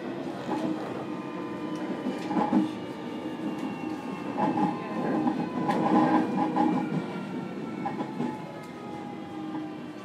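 Onboard running sound of a JR Kyushu 305 series electric train motor car, with its Toshiba VVVF inverter and permanent-magnet motors: a steady wheel-and-rail rumble with knocks from the track. A faint motor whine falls slowly in pitch from about halfway through as the train slows.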